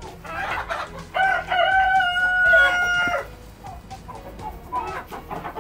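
A rooster crows once, starting about a second in: a few short notes and then a long held note lasting about two seconds. Other chickens cluck and squawk around it.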